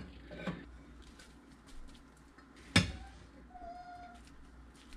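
A plastic spatula scooping cooked white rice onto a plate, with light scrapes and clicks and one sharp knock just before the three-second mark. A faint, brief squeak follows about half a second later.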